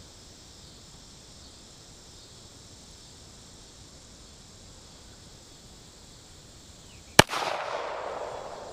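A single handgun shot about seven seconds in, its report echoing away over a second or so, over a steady chorus of crickets.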